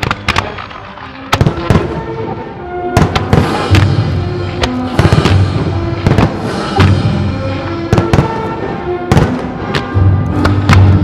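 Fireworks display set to music: many sharp bangs of shells and comets firing and bursting in quick, irregular succession, over a music soundtrack with a heavy low bass.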